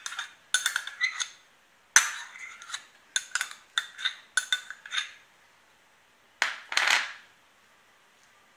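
Metal spoon clinking against dishes: a quick run of sharp clinks with a short ring over the first five seconds, then a brief scrape about six and a half seconds in.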